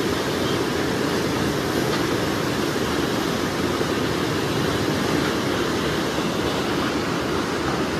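Rake of empty sugarcane bins rolling along cane tramway track, a steady rolling noise of steel wheels on rails.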